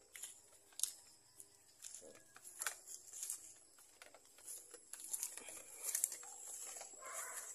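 Close, irregular rustling and crinkling with several sharp cracks, over a faint steady high-pitched drone.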